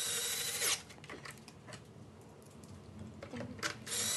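Plastic steering assembly of a Ninebot S self-balancing scooter being slid into its centre mount: a short rasping scrape, a few faint clicks, then another scrape starting near the end.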